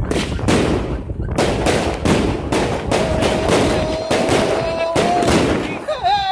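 Multi-shot fireworks cake firing aerial shells in rapid succession, each shot a sharp bang, roughly two a second.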